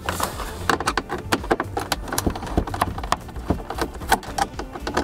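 Hand screwdriver undoing screws in the plastic dashboard trim of a Fiat Ducato van: a quick, irregular run of small clicks and ticks from the bit, screws and plastic.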